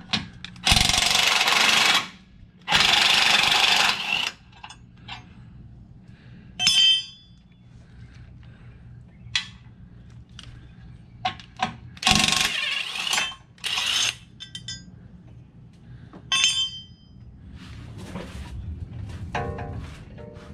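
Pneumatic impact wrench (air wrench) running in bursts as it backs out the Jeep's inner frame bolts: two long bursts in the first few seconds and two shorter ones about halfway. Light metallic clinks of bolts and tools come in between.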